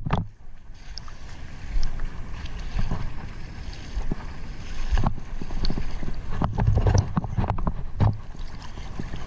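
Irregular knocks and bumps over a steady low rumble, with the loudest cluster of knocks between about six and a half and eight seconds in.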